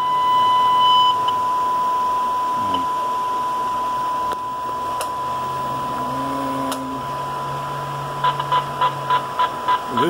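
Steady 1 kHz test tone over hiss from a Cobra 29 LX CB radio's receiver, demodulated from a weak AM test signal during a receive-sensitivity (SINAD) check. Near the end the tone breaks into rapid pulses, about four a second.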